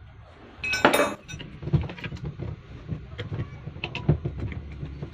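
Metal parts and tools clinking and knocking as they are handled, with a louder clatter about a second in.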